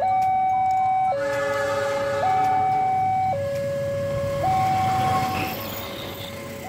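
Level-crossing warning alarm sounding a steady two-tone high-low chime, changing pitch about every second. Under it is the rumble of a diesel-hauled passenger train approaching and running past over the crossing, strongest in the middle.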